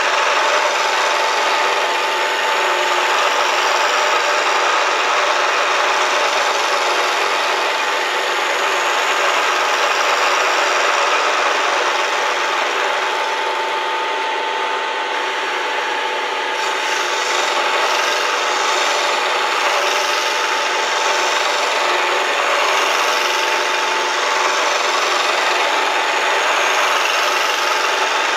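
Bridgeport milling machine under ProtoTrak CNC control, cutting steadily as it runs a program, with a constant whine over dense machining noise.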